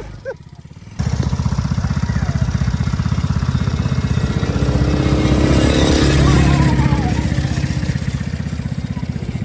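ATV engine running close by, a fast, even firing pulse that cuts in abruptly about a second in. It gets louder around the middle and eases off a little near the end.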